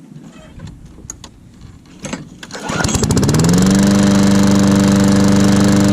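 Old Murray push mower's small engine being pull-started on a cold day: after some handling noise it catches about two and a half seconds in, rises in speed and settles into steady running.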